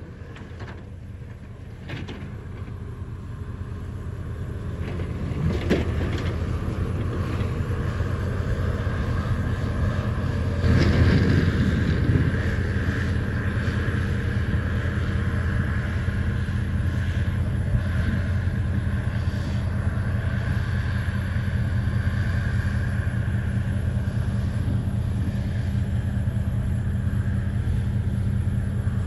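A Bobcat skid-steer loader's diesel engine runs steadily as the machine pushes snow with a Boss snow-pusher blade. The sound grows louder over the first few seconds, with a few knocks and a louder, rougher stretch about eleven seconds in.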